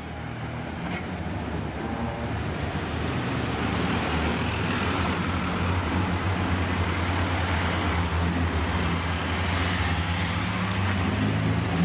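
Morris Minor cars driving slowly past, a small four-cylinder engine running with a steady low hum that grows gradually louder as one comes close.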